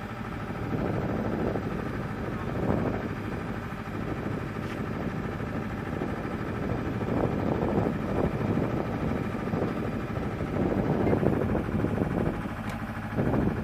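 Steady engine drone of running machinery, with a faint high whine over it and a couple of light clicks.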